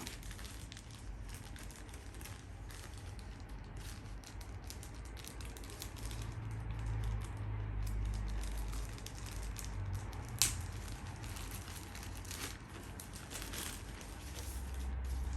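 Plastic packaging crinkling and rustling as drone accessories are handled and unpacked, with scattered small clicks and one sharp click about ten seconds in.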